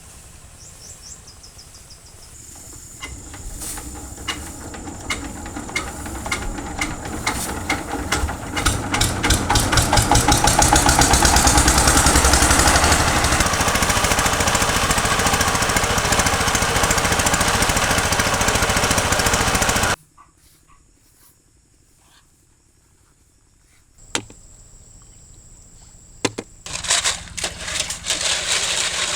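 A small engine speeding up, its beats quickening until it runs steadily at full speed, then cutting off suddenly about two-thirds of the way through. After a few quiet seconds an engine runs again near the end.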